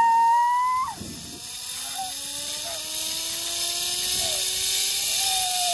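A person's loud held shout or scream for about the first second. It gives way to a hiss that slowly grows and a faint whine that slowly rises in pitch.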